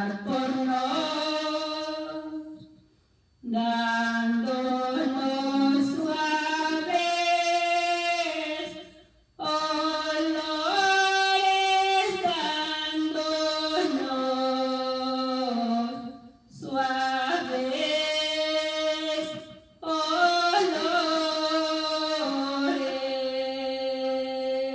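A woman singing a Spanish-language Christian praise song unaccompanied into a handheld microphone, in five phrases with short pauses between them.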